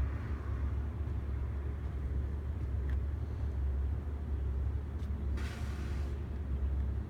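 Crane's engine running with a steady low drone while an HVAC unit is lifted, and a short hiss about five and a half seconds in.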